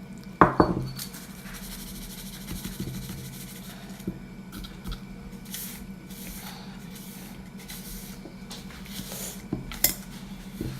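Kitchen handling sounds of salad-making: light scraping, rustling and clinks of dishes and utensils over a steady low hum, with a sharp knock about half a second in and a click near the end.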